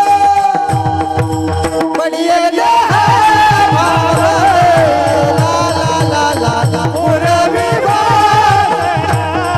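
Devotional kirtan music: a melodic line, the singer's voice as the title suggests, bends and ornaments over held instrumental notes, with a hand drum beating a steady rhythm. The melody takes over and rises in pitch about two and a half seconds in.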